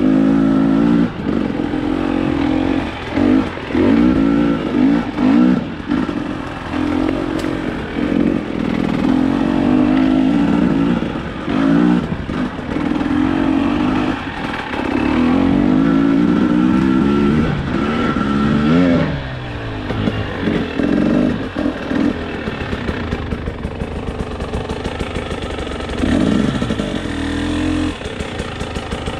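Off-road vehicle engine being ridden hard, its revs climbing and dropping over and over as the throttle is opened and shut, with a few quick falls in pitch. Near the end it settles to a lower, steadier run.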